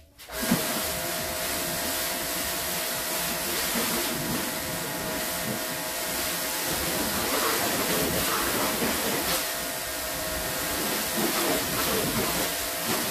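Electric pressure washer running: a steady motor-pump hum under the loud hiss of the high-pressure water jet spraying a car.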